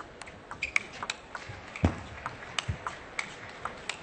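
Table tennis rally: the ball clicking off the rackets and the table in a quick, irregular run of sharp ticks, some with a short ping. Two low thumps come near the middle.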